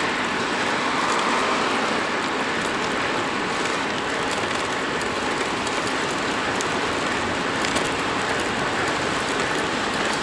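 Steady rushing noise of a road bike rolling fast downhill on brick paving: tyre hiss and wind on the microphone, with small clicks and rattles over the paving joints.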